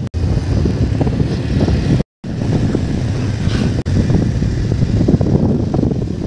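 Motorcycle running along a road, with wind rushing over the microphone. The sound cuts out for a moment about two seconds in.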